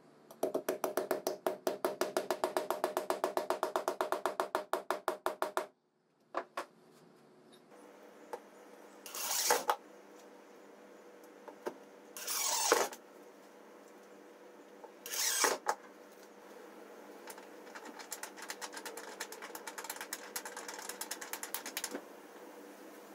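A small hammer taps a flanged, pronged tee nut into a wooden board with rapid light strikes, about eight a second, for some five seconds. Then an impact driver runs in three short bursts, each building briefly, driving screws through the nut's flange. Near the end comes a fast faint ticking as the threaded stud of a leveling foot is turned into the nut by hand.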